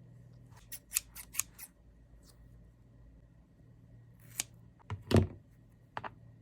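Scissors snipping into a squishy sugar-ball stress toy: a quick run of about five short snips, then a few separate cuts, the loudest with a dull thud about five seconds in.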